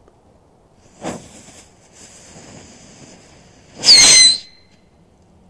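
K-33 Shark firecracker with its fuse spitting and hissing, then the charge venting as a loud, brief screech with a falling whistle about four seconds in. It does not explode: the firecracker is a dud that burns out.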